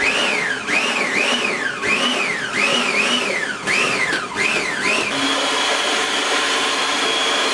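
Food processor motor blending a smoothie of frozen bananas and berries. Its whine rises and falls in pitch over and over, about twice a second, then holds steady from about five seconds in.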